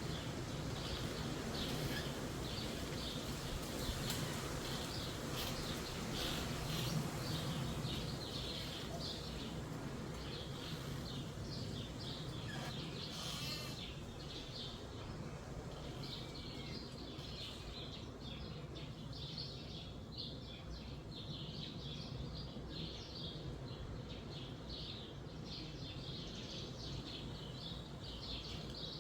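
Wind rushing through forest trees, stronger in the first few seconds and easing off, with small songbirds chirping rapidly and continuously over it.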